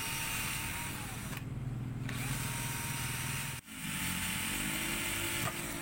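Electric drill with a 3 mm bit drilling into the grinder's housing beside the front bearing seat, to free a broken bearing's outer race stuck inside. The motor runs steadily with a whine that wavers as the load changes, dips briefly about two-thirds of the way through, then carries on at a lower pitch.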